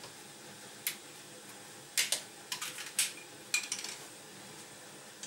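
Sharp clicks and light knocks of kitchen utensils and containers being handled: one about a second in, then clusters between two and four seconds in, over a faint steady hiss.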